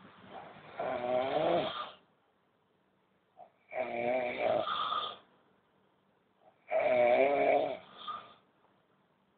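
Old man snoring: three long snores about three seconds apart, each with a wavering pitch.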